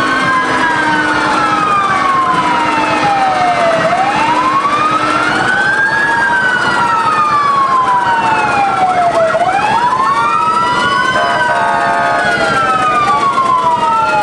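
Fire truck sirens wailing in slow rising and falling sweeps, about five seconds per cycle, with a second siren overlapping them in the second half.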